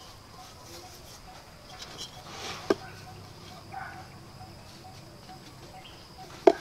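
Hollow clay bricks knocking sharply as they are set down on a brick roof: two hard knocks, one a little before halfway and one near the end. A steady high-pitched insect drone and a faint, evenly repeating chirping run behind them.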